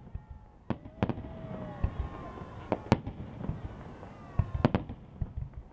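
Fireworks display: aerial shells bursting overhead with sharp bangs, about six in all, several coming in quick pairs.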